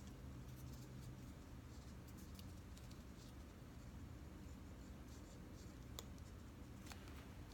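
Faint scratching of a glue applicator tip run along the edge of a paper piece, over a low steady room hum, with a couple of soft clicks near the end.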